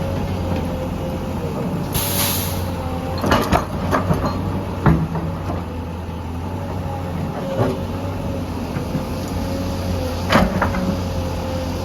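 Heavy machinery at work: a steady diesel engine drone with a short hiss about two seconds in, then a cluster of sharp clanks and knocks, and two more single knocks later on.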